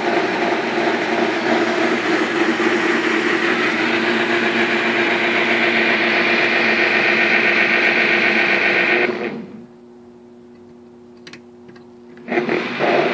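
G-scale Union Pacific GE U25B model diesel locomotive running, a steady mechanical sound. About nine seconds in it drops away to a faint hum with a few light clicks, then starts up again some three seconds later.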